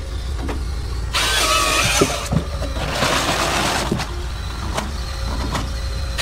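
Caterpillar-based forestry harvester bucking logs: the machine's engine runs steadily while the harvester head's chainsaw bar cuts through a log about a second in, with a second loud cutting stretch around three seconds and several sharp knocks of wood against the head in between.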